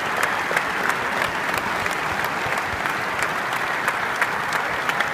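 Arena crowd applauding steadily, with sharp individual claps close by.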